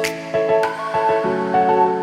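Background music: soft, melodic instrumental with held notes and light percussion.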